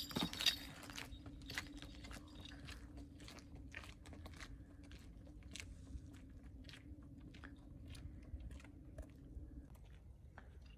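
Footsteps on wet cobblestone paving: irregular steps, with a few louder knocks about half a second in, over a faint steady hum that stops near the end.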